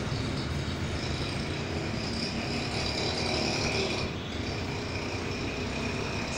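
Steady background noise: a low hum with a faint, thin high-pitched whine over it, unchanging throughout.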